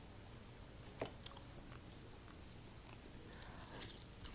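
Faint mouth sounds of a person chewing food, barbecue chicken thigh, with one sharper click about a second in and a few softer ticks.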